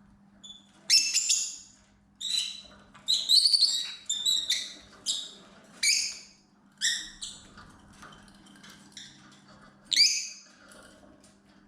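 Lovebirds giving short, shrill chirping calls, about a dozen at irregular intervals, the loudest about a second in and again near the end.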